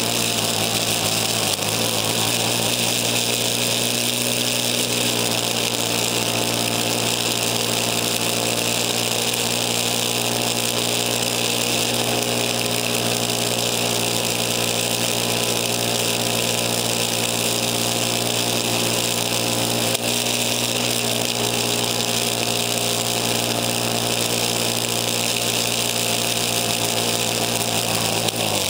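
Craftsman snowblower's engine running steadily as the machine clears snow and throws it from the chute, with a steady hiss over the engine tone. Picked up by a camera mounted on the handlebar.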